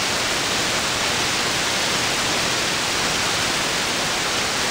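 Steady hiss of an AM receiver, an SDRplay RSP1 software-defined radio, tuned to an empty aircraft-band channel with no squelch: static between air traffic control transmissions.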